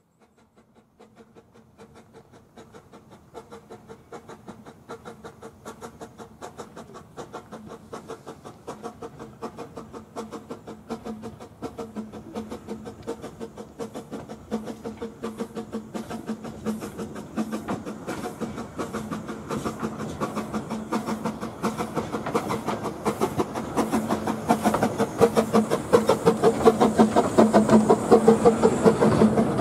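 Narrow-gauge steam train, a Hunslet 0-4-0 saddle tank locomotive with its coaches, approaching and passing close by. A rhythmic clatter grows steadily louder over a steady hum and is loudest near the end as the engine and coaches go by.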